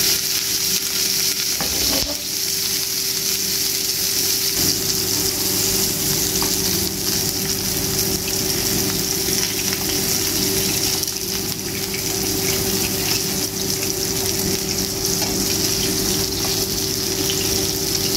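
Chicken keema kababs sizzling in a few spoonfuls of oil in a nonstick frying pan over a low flame: a steady frying hiss.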